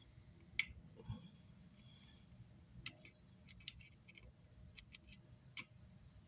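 Faint scattered clicks and ticks of multimeter test probes being handled and touched onto the amplifier's circuit board. Short faint beeps from the meter come about one and two seconds in.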